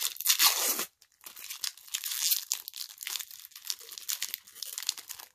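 Foil wrapper of a basketball card pack crinkling and tearing as fingers pick it open, loudest in the first second.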